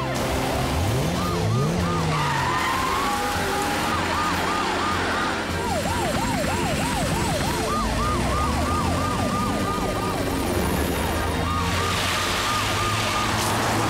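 Emergency-vehicle sirens of cartoon police car, ambulance and fire truck, overlapping and yelping up and down about four times a second, over the noise of a rainstorm.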